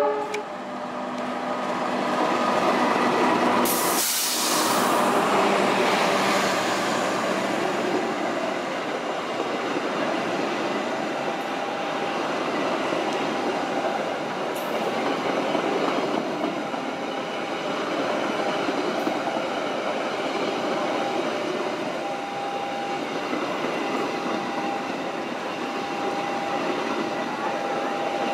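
Argo Sindoro passenger train passing close by, led by its diesel locomotive, growing louder over the first few seconds. A long steady rushing rattle follows as the coaches roll past, with a thin high tone coming and going.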